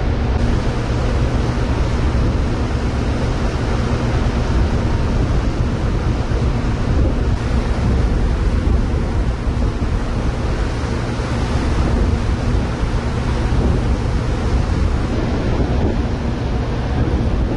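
Wind buffeting the microphone on the ferry's open deck, over the steady low drone of the ship's engines and water churning in the propeller wash as she manoeuvres at the berth.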